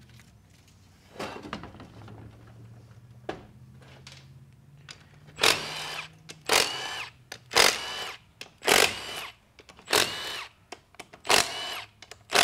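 Cordless drill-driver with a socket spinning bolts out of a TH350 transmission case. There are a few clicks and knocks at first, then from about halfway through about seven short trigger pulls roughly a second apart, each a brief high whir of the motor.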